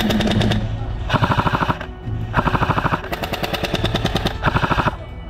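Airsoft rifles firing rapid full-auto bursts, several runs of fast clicking shots with short pauses between them.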